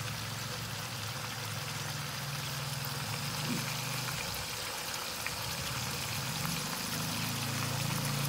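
Chicken wings, pork slices and chopped garlic frying in oil in a frying pan: a steady hissing sizzle with scattered small crackles, over a low steady hum.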